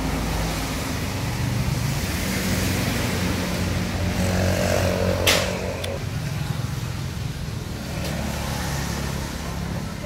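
Road traffic: a vehicle's engine running, with one sharp click about halfway through.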